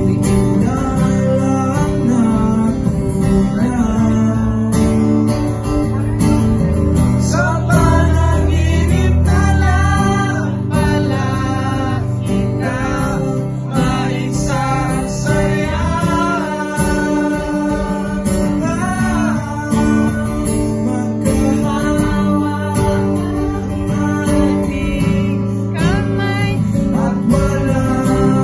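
A man singing into a microphone while strumming an acoustic guitar, a live amplified performance.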